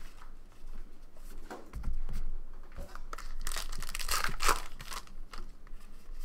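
A trading-card pack's wrapper being torn open, crinkling loudly for about a second and a half in the middle. Before it come the soft rustle and flick of cards being handled and a dull bump.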